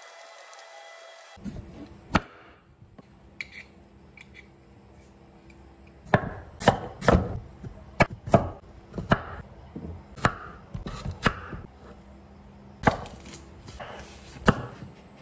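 Large kitchen knife chopping peeled taro and red onion on a thick wooden chopping board: sharp knocks of the blade hitting the board, a few scattered at first, then a run of cuts about one to two a second.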